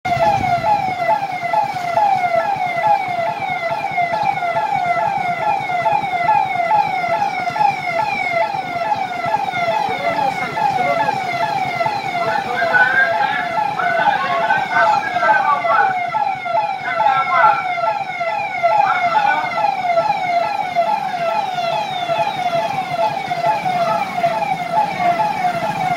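Police siren wailing in a fast, repeating falling sweep, about two sweeps a second, without a break.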